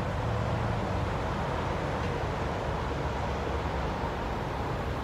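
Steady highway traffic noise: a constant low rumble of passing trucks and cars.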